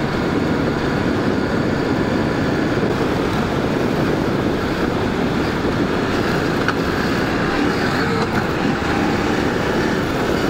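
Trail motorcycle riding at a steady speed, its engine mixed with heavy wind rush buffeting the microphone.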